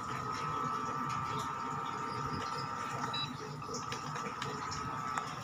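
Induction cooktop running under a saucepan of water, giving off a steady high-pitched whine over a soft fan-like hiss.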